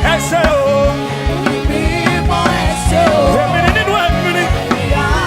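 Live gospel praise music: a band with drums and bass playing under singing voices, with a steady beat.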